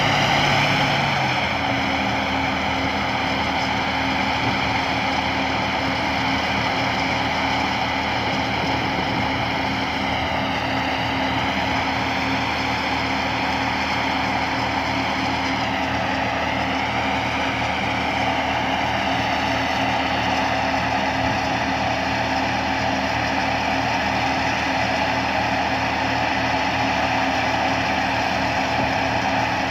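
Rice combine harvester's engine and machinery running steadily, with a high whine over a low engine note. The whine sags in pitch briefly twice, a little after ten seconds and around sixteen seconds in, and the low note shifts about a second in.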